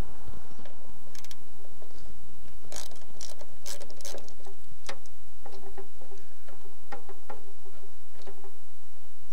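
Hand wrench clicking and clinking on steel nuts and the jeep's sheet-metal body while undoing the windshield bracket fasteners from inside the glove box: a scatter of sharp, irregular metal ticks.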